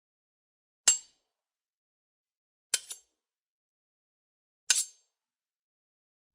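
Sword sound effect: three short, bright metallic blade clinks about two seconds apart, the second and third each a quick double hit.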